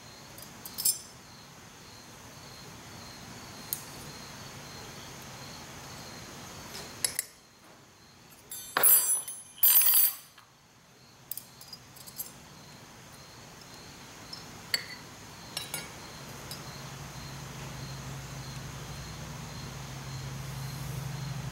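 Oiled steel clutch-pack plates and other transmission parts clink on each other as they are stacked onto a shaft in a John Deere 4430 quad-range transmission rebuild. There are scattered light clinks, with the loudest burst of metal clatter about nine to ten seconds in. A low hum comes up in the last few seconds.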